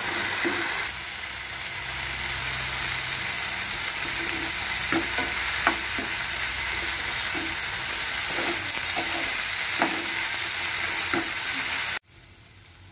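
Diced potatoes sizzling in oil in a nonstick pan while a steel ladle stirs them, with scattered clicks of the ladle against the pan. The sizzle cuts off abruptly near the end.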